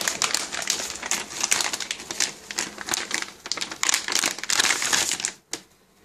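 Crinkling and rustling of a plastic anti-static bag and its box as a motherboard is lifted out, stopping about a second before the end.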